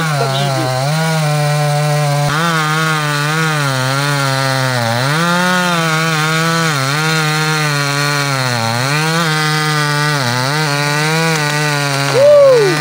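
Two-stroke chainsaw cutting into a tree trunk at full throttle. Its engine note sags and recovers every second or two as the chain bites into the wood. Near the end there is a brief, louder swell in pitch.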